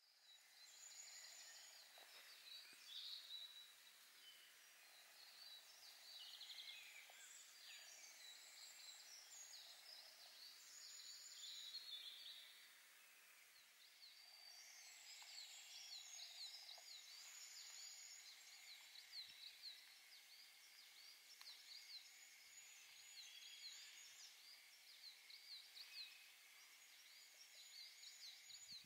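Faint song of several songbirds in woodland, many quick high chirps and trills overlapping one another.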